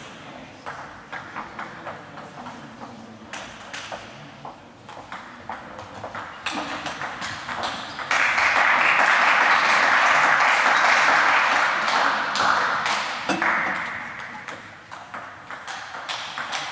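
Table tennis balls clicking off bats and tables in a rally, the sharp ticks coming in quick, irregular runs. From about eight seconds in, a loud steady rushing noise starts suddenly and covers them for about five seconds before dying away.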